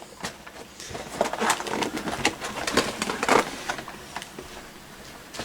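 Drip coffee maker brewing, gurgling and sputtering in irregular bursts as it pushes hot water through.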